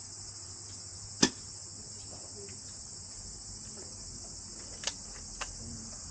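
Crickets chirring steadily in the background, a continuous high-pitched trill. A single sharp click comes about a second in, and two fainter clicks follow near the end.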